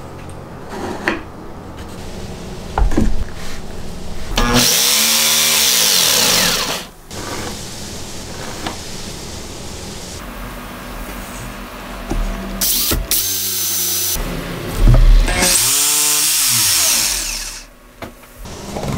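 Handheld power tool motor run twice for about two seconds each, spinning up and winding down, with a few knocks and clicks in between.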